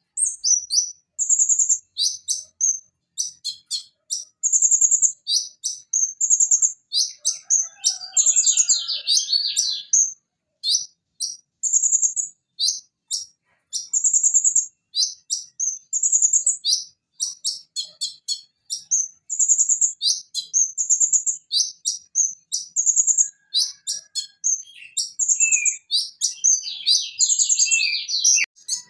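Van Hasselt's sunbird (konin) singing: quick, high-pitched phrases of short sharp notes and trills, one after another with brief gaps.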